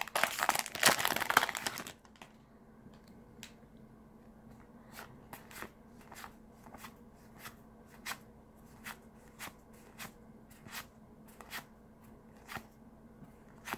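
Magic: The Gathering booster pack's foil wrapper crinkling and tearing open for about two seconds. Then the cards are flicked from one hand to the other one at a time, a soft click about every half second or so.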